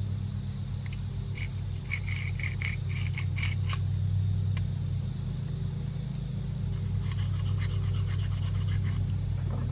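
Small clicks and scraping from a dial indicator being handled and its bezel turned, a cluster of them between about one and four seconds in and fainter ones near the end, over a steady low hum.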